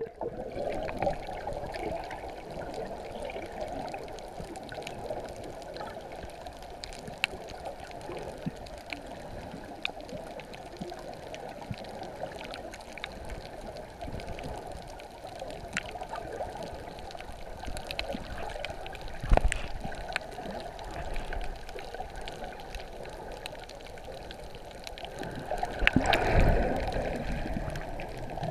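Underwater ambience heard through an action camera's waterproof housing: a steady, muffled watery rush with many scattered small clicks. A brief thump comes about two-thirds of the way through, and a louder swell of rushing water near the end.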